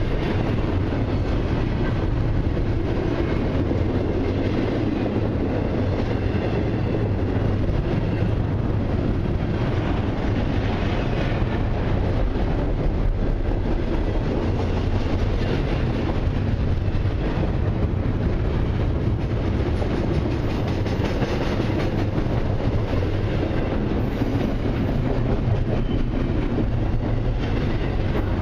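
Freight train of intermodal and autorack cars rolling steadily past, a continuous noise of steel wheels running on the rails.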